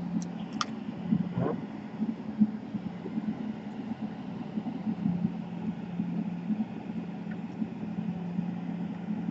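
A steady low mechanical hum with a rough, fluttering texture, and a few light clicks in the first second and a half.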